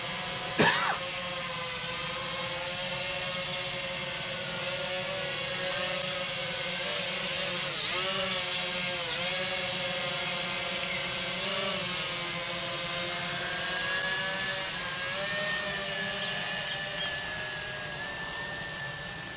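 Small quadcopter drone hovering close by, its propellers giving a steady, high-pitched whine. The pitch dips briefly a few times around the middle as the motors change speed, and the sound grows fainter near the end.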